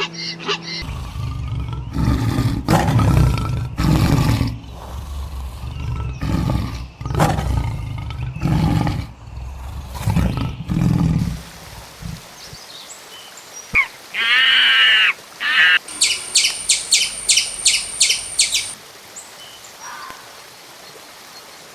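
Animal calls: a run of deep, low calls about once a second for the first twelve seconds, then a brief high chirping bird call, followed by a fast, evenly spaced trill lasting a few seconds.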